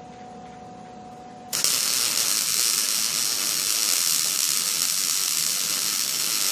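Electric arc welding with a stick welder: about a second and a half in, the arc strikes and gives an even crackling hiss for about five seconds, then cuts off. Before it, a faint steady hum.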